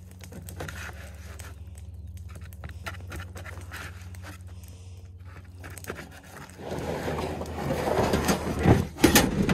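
Soft knife cuts as catfish fillets are chunked on a paper plate, over a steady low hum. Past the middle, louder scraping and knocking as a plastic storage tote is handled on a pickup's metal bed.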